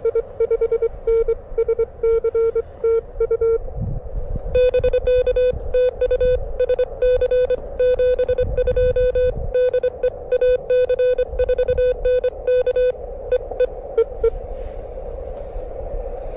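Morse code (CW) from a ham radio transceiver: a pitched beep near 500 Hz keyed on and off in fast dots and dashes at about 25 words per minute, one exchange, a short gap, then a longer run of code. Gusts of wind rumble on the microphone along with it. Near the end the code stops and the receiver's band hiss is left, with a few last dots.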